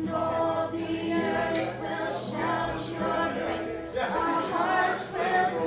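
Several voices singing a worship song to an acoustic guitar.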